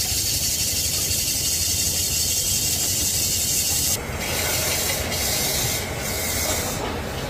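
Hand-held cutting tool shaving a spinning aluminium pot on a lathe: a steady high scraping hiss of metal being cut, over the low hum of the running lathe. About four seconds in the hiss drops sharply and goes on more faintly, broken by short gaps as the tool is eased off and put back.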